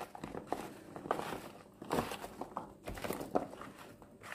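Oiled, spiced sticks of zucchini, potato and carrot being tossed by hand in a tray. Irregular wet rustles and soft knocks come from the pieces against each other and the dish, with a few stronger strokes about a second apart.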